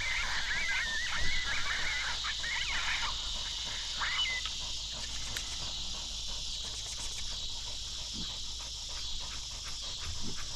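Canine yips and high, wavering howling calls in the first three seconds, with one short call about four seconds in, over a steady high-pitched hiss.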